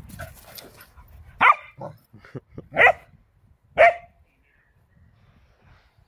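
A dog barking in play: three loud, short barks about a second apart, with a couple of softer short sounds between the first two, in the first two-thirds.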